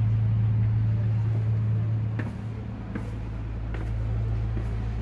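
An engine running steadily with a low hum that eases slightly about two seconds in, with a few faint knocks over it.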